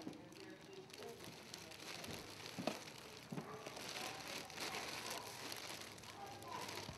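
Faint rustling and crinkling with scattered light clicks, like things being handled, and low murmuring in the background.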